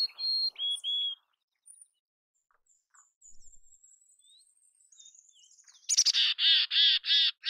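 Mountain chickadee: a short song of about four clear whistled notes stepping down in pitch at the start. Near the end comes a quick string of about six harsh, buzzy 'dee' notes, the hoarse end of its chick-a-dee call.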